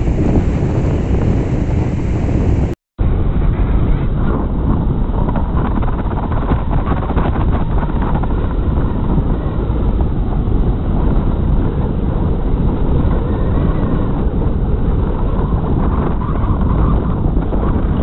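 Wind noise on the microphone over small waves breaking on a sandy shore: a steady, rumbling rush with one brief cut-out about three seconds in.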